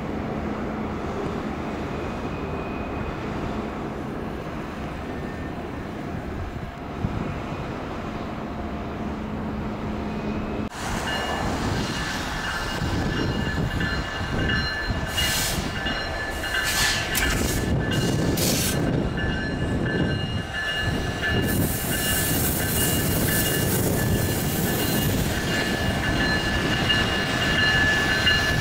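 A steady low drone for about the first ten seconds. Then a Canadian Pacific diesel locomotive hauling a short freight train slowly over snowy track: an engine rumble with steady high-pitched wheel squeal that lasts to the end, and a run of sharp clicks from the wheels a few seconds after it starts.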